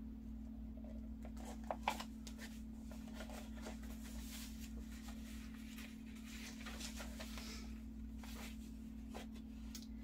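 Faint rustling and soft handling of paper as the pages and fold-out flaps of a handmade paper junk journal are turned, with two slightly louder rustles a little before two seconds in. A steady low hum runs under it.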